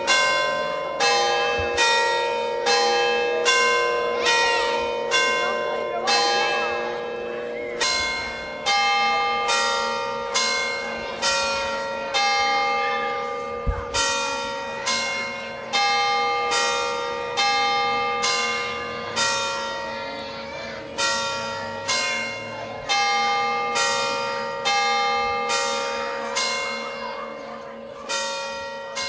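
Church bells ringing a peal, several bells of different pitch struck one after another in a steady rhythm, with a low hum ringing on beneath the strokes.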